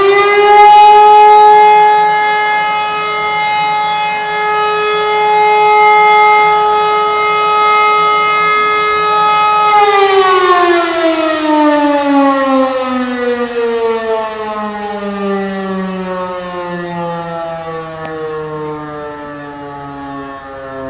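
E57 electromechanical fire siren sounding the last wail of a fire-brigade alarm, its motor running the wrong way round. The tone holds a steady pitch for about ten seconds, then winds down in a long falling glide, getting quieter.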